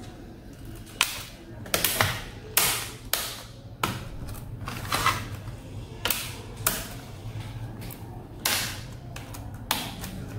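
Keys of a freshly fitted HP EliteBook 840 G3 laptop keyboard clicking and clattering irregularly as hands press and tap across it, over a steady low hum.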